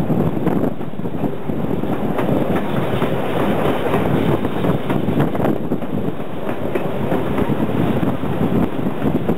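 Railway passenger coach running along the track, its wheels clattering over the rails under a steady rushing noise.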